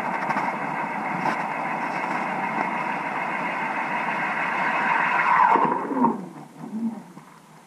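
Ice auger drilling through the lake ice, heard underwater: a steady, loud running noise. About five and a half seconds in the motor winds down with a falling pitch and goes quiet.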